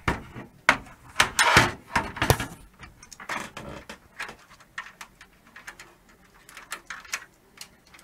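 Handling noise from a PC case's perforated metal side panel and its fan wiring: irregular knocks, clunks and rattles, densest and loudest about one to two and a half seconds in, then scattered light clicks.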